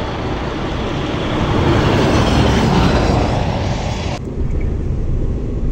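Traffic noise from heavy trucks passing on a highway, a dense rushing noise with a falling pitch as one goes by. A little over four seconds in it cuts off abruptly to a low, steady truck engine rumble heard from inside the cab.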